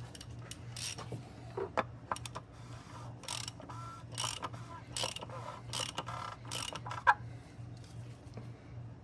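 Hand work on a car's oil filter assembly: irregular clicks, then a run of short rasping, ratchet-like strokes about half a second apart, as the new filter and its housing parts are fitted together.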